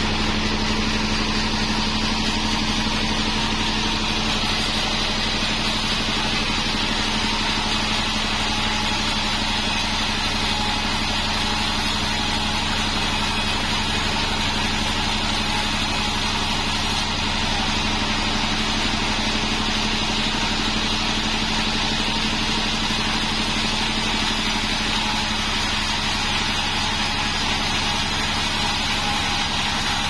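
Bandsaw mill running steadily with a constant hum, its blade sawing lengthwise through a beam of bayur wood.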